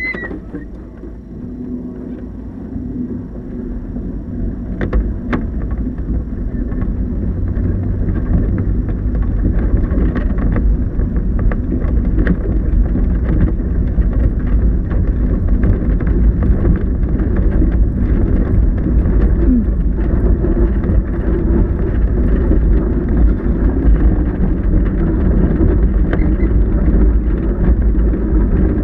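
Low rolling and wind noise inside the cockpit of the KillaJoule electric streamliner motorcycle as it moves across the salt. The noise builds over the first seven or eight seconds, then holds steady, with a few faint clicks.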